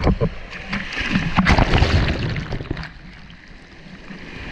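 Water splashing and sloshing against an action camera held at the water's surface, with irregular knocks of water on the housing. Loudest in the first two seconds, easing off after about three seconds.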